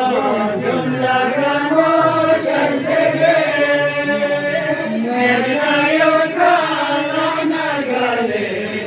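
Melodic chanting: a sung religious recitation with long, held, wavering notes and no breaks for speech.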